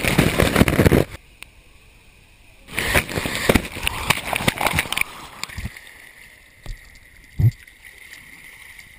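Water rushing and splashing around a camera riding a water slide: a loud rush for about the first second, a quieter stretch, then a second loud burst of spray about three seconds in. It dies down to a steady hiss of water running along the slide's run-out, with one short thump near the end.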